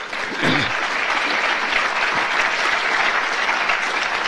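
An audience applauding in a hall. The clapping builds within the first half second and then holds steady.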